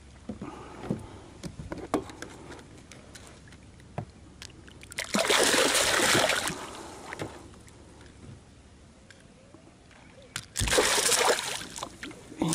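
A hooked bicuda thrashing at the water's surface beside a kayak, still fighting the line: two bursts of splashing, about five seconds in and again near the end.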